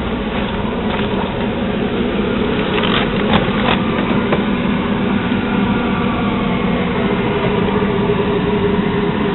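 Syfan 701 shrink-wrapping machine running with a steady mechanical hum, with a few short clicks about three to four seconds in.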